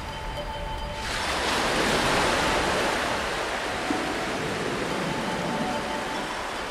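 A rush of surf-like noise, like a sea wave breaking, swells in suddenly about a second in and slowly fades away, over faint background music.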